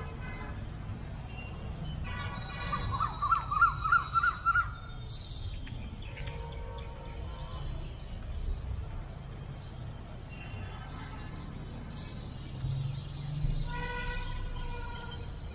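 A bird calls a quick run of short rising notes, about five a second, for a couple of seconds starting about two seconds in, over a steady low outdoor rumble. Near the end comes a steady pitched tone.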